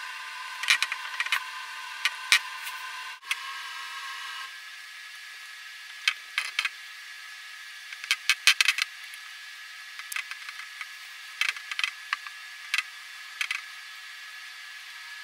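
Paintbrush dabbing and tapping acrylic paint onto a hardened clay mask: irregular short clicks and taps, some in quick clusters. A steady faint high whine runs underneath.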